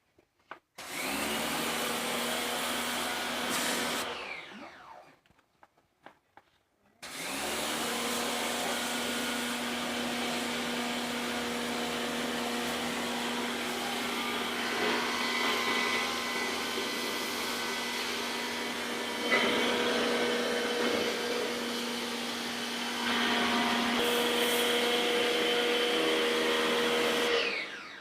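Handheld electric air blower switched on and run for about three seconds, then switched off and winding down. It is started again a couple of seconds later and runs with a steady motor whine and rushing air until it is switched off and winds down near the end.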